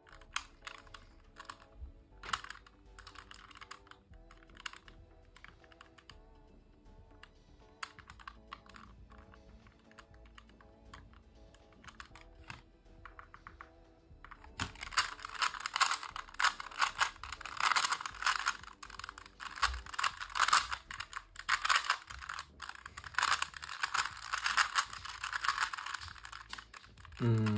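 Rubik's brand 3x3 cube, lubed and modified, being turned: scattered plastic clicks at first, then about halfway a fast, continuous clacking of its layers being turned during a speedsolve.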